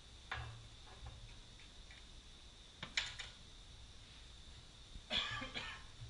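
A few short metallic clinks and knocks from hand tools and parts being handled at a car's stripped front wheel hub: one just after the start, a sharp one about three seconds in, and a louder cluster near the end.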